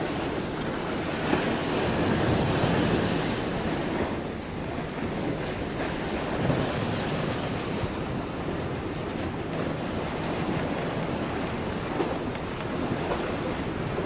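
Wind rushing over the microphone and small waves washing against the concrete breakwater blocks: a steady noise that swells and eases a little.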